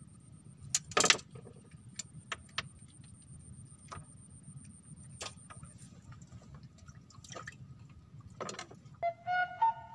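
Sparse clicks and knocks from handling fishing tackle on a bamboo raft, with one louder knock about a second in. Flute music begins near the end.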